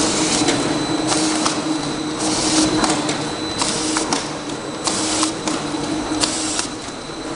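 Automatic round-bottle labeling machine running: a steady motor hum, with a burst of high hiss about once a second as each cycle repeats, and light clicks in between.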